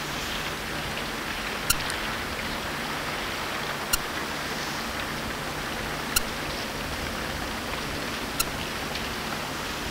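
Steady rushing noise of a lake freighter under way through a channel of broken ice, with a faint low hum. A sharp click repeats about every two and a quarter seconds.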